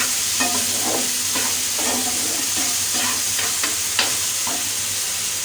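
Tomatoes sizzling in oil and ghee in a pan over high heat, with a spatula scraping and stirring them in short strokes.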